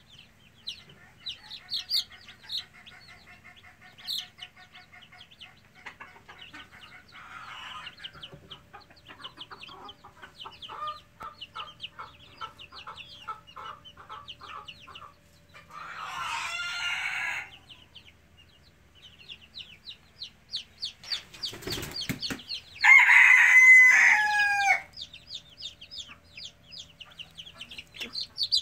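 Young chickens peeping and clucking in quick, short calls throughout. About 16 seconds in one gives a longer call, and about 23 seconds in a young cockerel gives a loud, crow lasting about two seconds that breaks into several pieces. This crow is the loudest sound, and a few sharp knocks come just before it.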